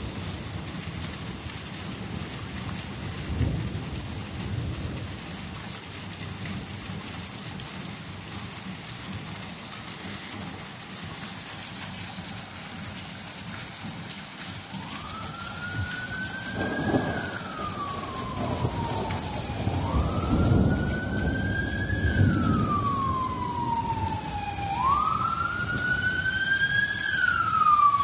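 Steady rain with thunder rumbling, briefly a few seconds in and longer through the second half. About halfway through, an emergency vehicle's siren starts wailing, rising and falling about every five seconds.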